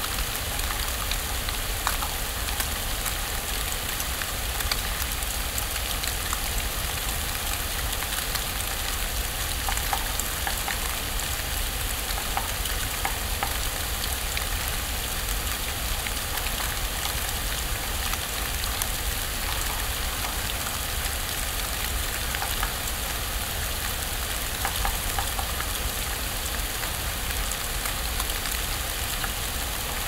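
Heavy snow falling: a steady soft hiss with many tiny faint ticks of flakes landing, over a steady low rumble.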